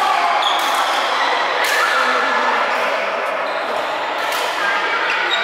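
Badminton rackets striking shuttlecocks: a few sharp smacks a second or more apart over the busy background of play across several courts.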